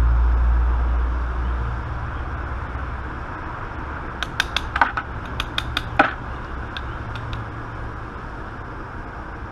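Two-cavity tool-steel wad cutter bullet mold being worked open and tapped to free the cast bullets. Sharp metal clicks and taps come in a quick run between about four and six seconds in, the last one the loudest, over a steady low rumble.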